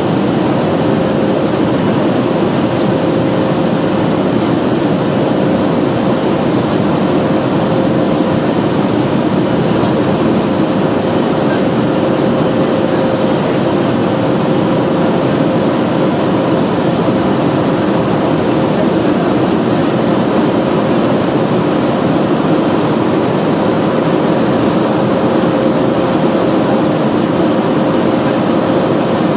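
Boeing 737-300 with CFM56-3 jet engines running steadily: a constant rush of engine and air noise with a steady mid-pitched hum, heard from inside the cabin.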